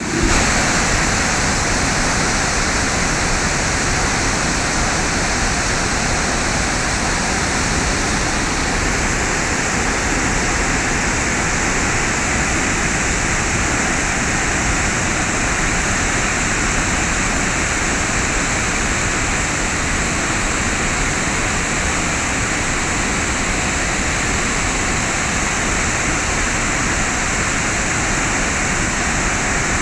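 Water discharging through the open spillway gates of a concrete dam and crashing into the river below: a loud, steady rush of water.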